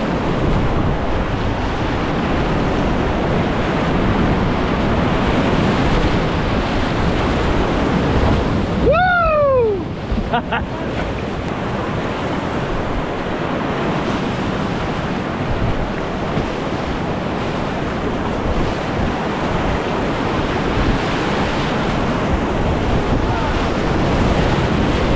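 Whitewater river rapids rushing steadily, with wind buffeting the microphone. About nine seconds in, a single short shout falls in pitch.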